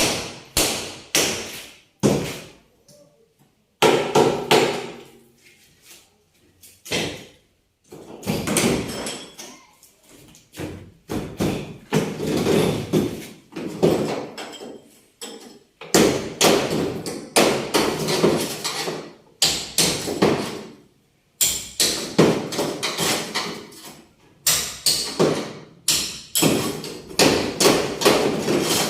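Repeated hammer strikes, sometimes single and sometimes in quick runs of several a second, with short pauses between. They are typical of hammering out collision damage on a car body.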